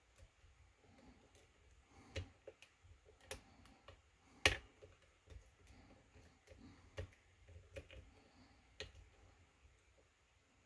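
Faint, scattered small metallic clicks and ticks of a lock pick and tension wrench working the pins of a key-in-knob lock cylinder, with one sharper click about four and a half seconds in.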